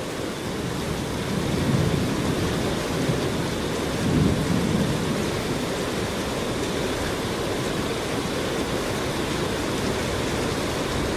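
A river in flood running as a raging torrent: a steady rush of water, with low rumbling swells about two and four seconds in.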